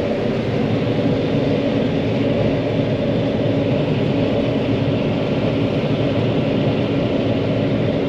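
John Deere 9500 combine running, heard from inside its cab: a steady, even diesel engine and machinery drone.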